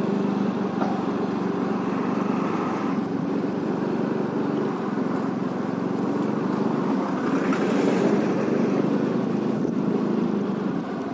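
Motorcycle running at low road speed, a steady engine hum with road noise. A bus passes close by about two-thirds of the way in.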